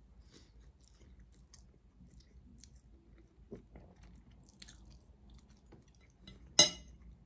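Quiet chewing and wet mouth sounds of someone eating spaghetti bolognese. About six and a half seconds in comes one sharp clink with a brief ring, as the metal fork strikes the ceramic plate.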